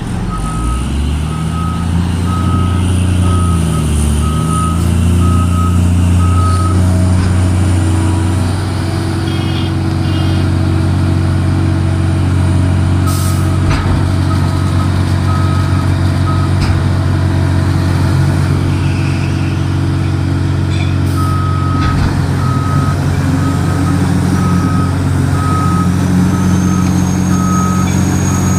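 Large diesel engines of heavy mining machinery running steadily with a deep drone, while a backup alarm beeps at a steady pace in three spells. A few sharp knocks are heard midway and about three quarters of the way through.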